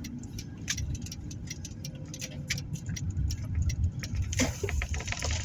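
Car's turn signal ticking steadily over the low rumble of the car's cabin and road noise, as the car turns around. About four and a half seconds in comes a short burst of rustling and rattling.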